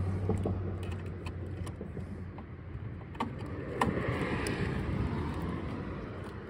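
Plastic wire-harness connector and its wires being handled and pushed onto a gate controller board's header: scattered light clicks and taps, the sharpest a little before four seconds in. Underneath runs a low background rumble that swells and fades between about four and five seconds.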